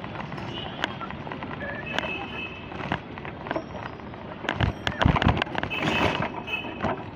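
Street traffic noise among cycle rickshaws, with scattered clicks and a burst of loud knocks and rattles about four and a half to six seconds in.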